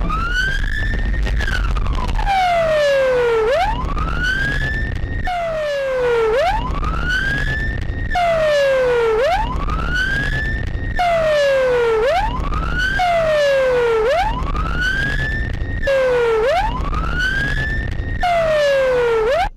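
Electronic siren wailing, its pitch rising and falling about every three seconds over a low rumble, then cutting off suddenly at the end.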